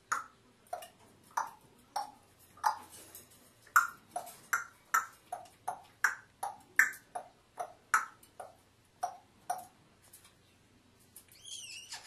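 African grey parrot making a run of short, pitched popping clicks, about two or three a second, alternating between a higher and a lower note. The pops stop about ten seconds in, and a warbling whistle begins near the end.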